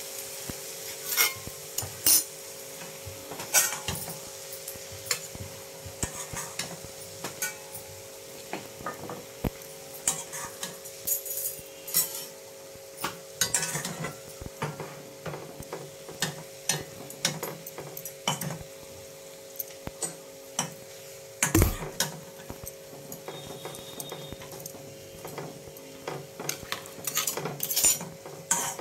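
Spatula scraping and knocking against a metal kadhai as cauliflower keema with peas is stirred, with a light sizzle from the hot pan. The scrapes and clicks come irregularly, with one heavier knock about two-thirds of the way through, over a steady low hum.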